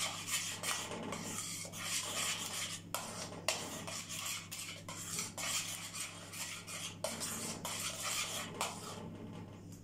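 Metal spoon stirring quickly around a stainless steel pot of hot milk and starch, scraping the pot's bottom and sides as the cream thickens. A steady low hum runs underneath.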